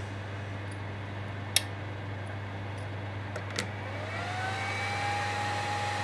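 Steady electrical hum from a CNC control box with a variable frequency drive, two sharp clicks about a second and a half and three and a half seconds in, then from about four seconds in a whine that rises in pitch and levels off as the VFD-driven spindle motor speeds up.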